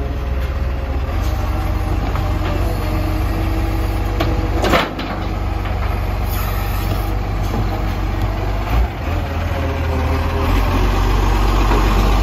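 Dennis side-loader garbage truck's diesel engine running steadily at the kerb while its hydraulic arm lifts a wheelie bin, tips it into the hopper and lowers it again. There is one sharp bang about five seconds in.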